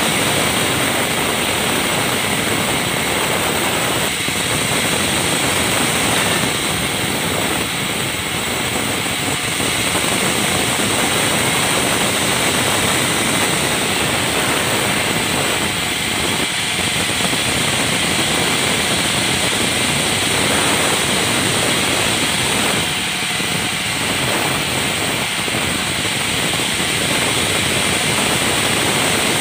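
Sawmill band saw running steadily, its blade cutting through balsa wood.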